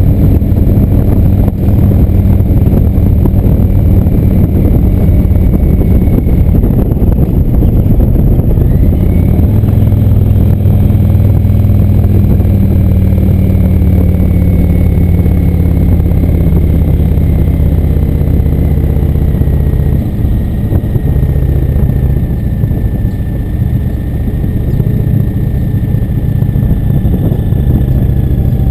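Indian motorcycle's V-twin engine running under way on the road, a steady loud note that drops lower and a little quieter after about twenty seconds.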